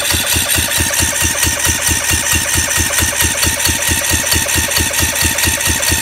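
Kohler Courage 18 hp single-cylinder engine cranking steadily on its electric starter without catching, in an even rhythm of about five beats a second. It is a no-start: the engine doesn't sound like it's getting spark, and the fault is an exhaust valve held open by a valve guide that has popped up, so the cylinder draws no vacuum.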